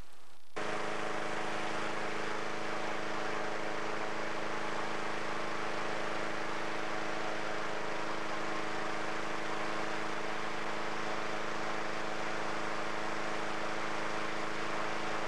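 Engine-driven inflator fan running steadily, blowing cold air into a hot air balloon envelope during cold inflation. The sound comes in abruptly about half a second in.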